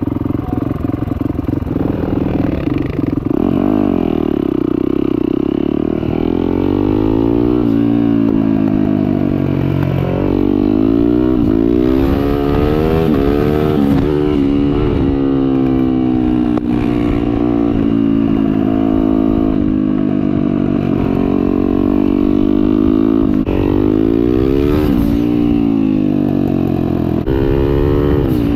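Turbocharged Yamaha YZ450F single-cylinder four-stroke engine under way on the road, its pitch climbing and dropping again and again as the throttle opens and closes and the gears change.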